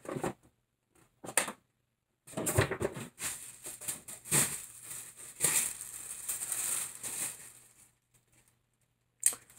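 Packing paper rustling and crinkling in irregular bursts as hands rummage through a shipping box, starting about two seconds in and stopping near the end.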